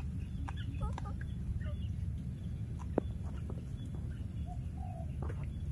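A few short, scattered animal calls, small curving chirps, over a steady low rumble, with one sharp click about three seconds in.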